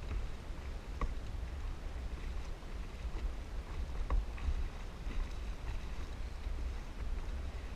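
Sea kayak paddle blade dipping and splashing into choppy seawater in separate strokes, over a steady low rumble of wind on the microphone.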